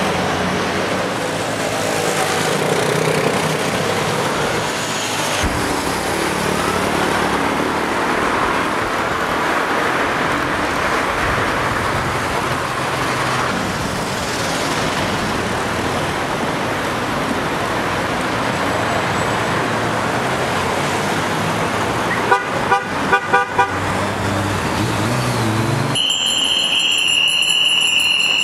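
Busy road traffic: cars and trucks passing steadily. A car horn honks in about five short toots in quick succession about 22 seconds in. Near the end a steady high-pitched whine sets in.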